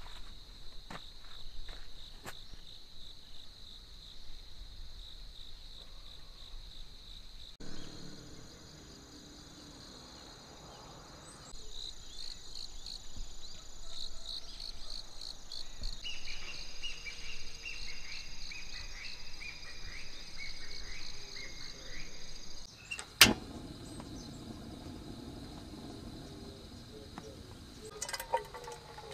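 Insects chirping in a steady high-pitched chorus, the pattern changing abruptly several times, with rapid pulsing chirps in the second half. A single sharp click about 23 seconds in.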